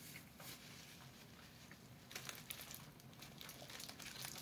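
Faint chewing of a bite of burrito, mixed with light crinkling of its wrapper and small clicks, a few of them sharper about halfway through.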